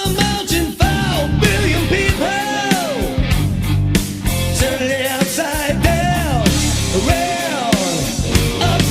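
Hard rock song with a singing voice over distorted electric guitar, bass and drums.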